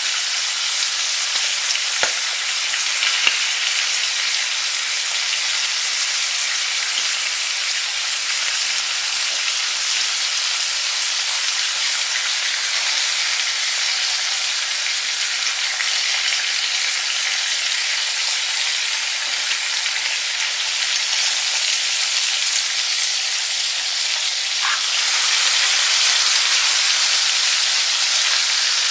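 Food frying in a pan with a steady, even sizzle, a couple of light clicks a few seconds in, and a louder, brighter stretch near the end.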